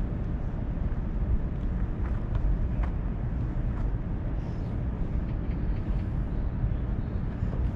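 Steady low rumble of outdoor background noise at a ballfield, with a faint click or two about three seconds in.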